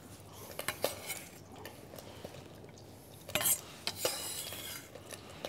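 Scattered knife taps and clinks of utensils and a glass bowl, with a louder clatter a little past halfway, over the faint steady sizzle of butter heating in a pot.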